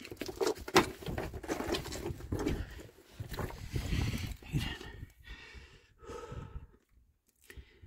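A person panting and scuffing over loose rock and stones while crawling through a low cave passage, with small clicks of stones shifting underfoot; it dies down near the end.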